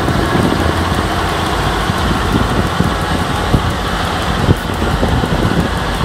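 John Deere 6830 tractor's six-cylinder diesel engine running steadily under load, pulling a five-furrow plough through the soil.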